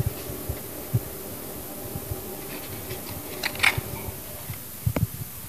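Handling noise: a few soft knocks and light rustling as a small cardboard seed-kit box is held and turned right up against the microphone, with a cluster of knocks near the end, over a steady faint room hum.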